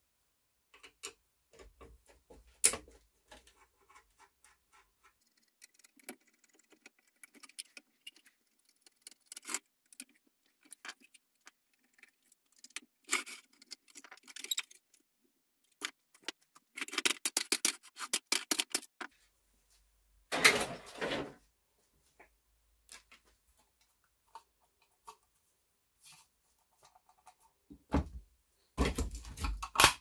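Clicking, rattling and knocking of a screwdriver against the metal and plastic parts of a dehumidifier's blower fan housing as it is taken apart, in short scattered bursts. A run of quick clicks comes a little past halfway, and heavier knocks come near the end.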